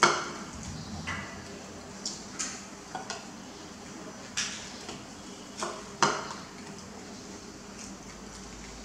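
Ceramic plates knocking and clinking on a tabletop: a series of short, sharp clatters, the loudest right at the start and others scattered through the next six seconds.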